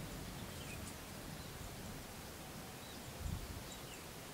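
Faint outdoor ambience: a steady hiss with a few faint, short bird chirps and one low thump a little past three seconds in.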